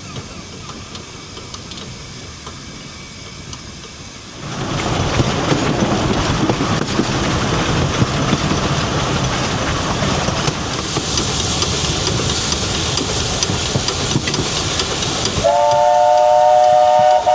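Narrow-gauge steam locomotive running, with loud rumble and hiss starting suddenly about four seconds in. Near the end it sounds its steam whistle, a steady chord of several notes held for about two seconds.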